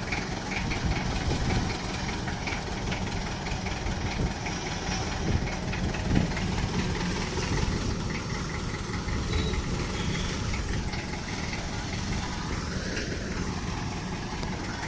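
Heavy diesel engine of road-working machinery running steadily, with a light regular knock.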